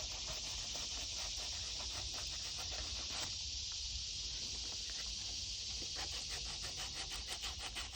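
Sandpaper rubbing back and forth on a PVC pipe to scrub off paint, in repeated rasping strokes that quicken near the end. A steady high insect buzz runs underneath.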